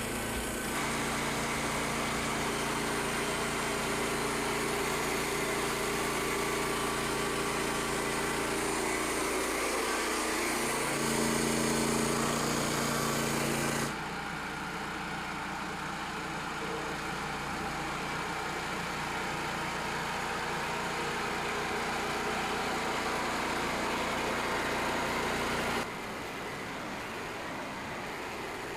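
Small gas engine of a Frontier OS27 portable band sawmill running steadily. Its pitch shifts about a third of the way in, and the sound drops sharply in level about halfway through and again near the end.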